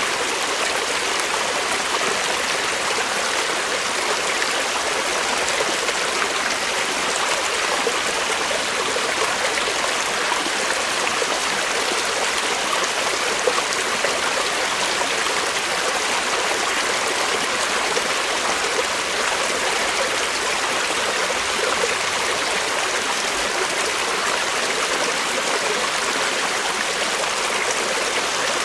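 Creek water flowing steadily over rocks, a continuous rushing babble with small gurgles and trickles.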